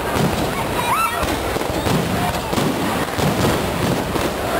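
Aerial fireworks going off in a dense, continuous run of bangs and crackling, with a short rising whistle about a second in.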